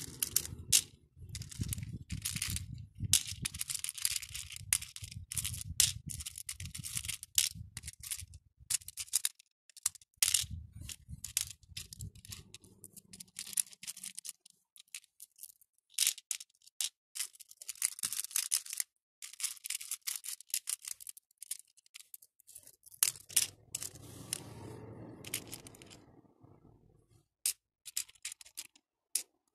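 Acrylic beads clicking and rattling against each other and the clear plastic compartment tray as fingers pick through and sort them. It is an irregular run of sharp clicks, with stretches of low rubbing as the beads are pushed around.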